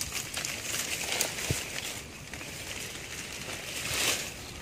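Leaves and dry palm fronds rustling and brushing as someone pushes through dense undergrowth, swelling twice, with a light knock about a second and a half in.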